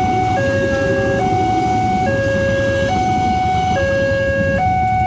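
Electronic two-tone warning bell of a railway level crossing, alternating between a higher and a lower tone roughly every second, over the rumble of a passenger train running through the crossing. The train's last carriage passes near the end.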